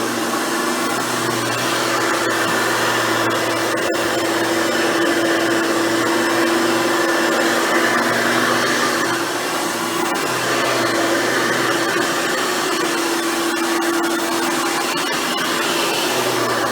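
Hoover Futura Dimension upright vacuum cleaner running steadily, a motor hum over the rush of air.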